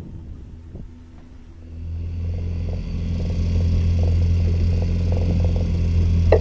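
Boat's outboard motor running steadily as a low drone, which grows much louder about two seconds in, with a hiss over it from about three seconds in. A single sharp knock comes just before the end.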